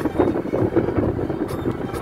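Car driving along a road, heard from inside the cabin: steady engine and road rumble, with music playing over it.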